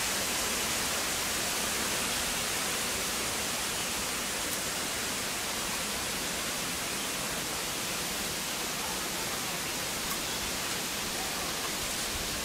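A steady, even hiss with a couple of faint ticks.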